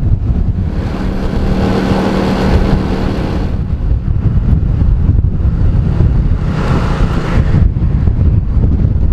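Wind buffeting the microphone of a moving motorcycle, with a steady engine hum rising about a second in and dropping away a few seconds later. A second, shorter swell of engine noise comes around seven seconds in.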